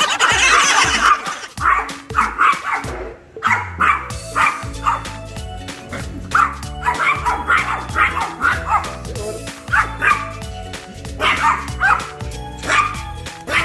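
Small dogs barking at a cat through a glass door: many short, sharp yapping barks, some in quick runs of two or three, over background music.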